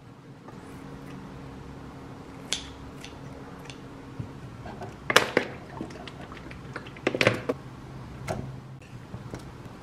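Kitchen scissors snipping raw starch-coated chicken, a few sharp clicks and snaps of the blades, the loudest about halfway through and again a couple of seconds later. Near the end, light knocks as pieces are pushed off a plate into an empty frying pan with a wooden spoon, over a steady low hum.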